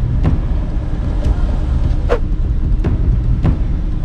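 Steady low rumble of a running car heard from inside the cabin, with a few faint short gulps as a man drinks from a plastic bottle.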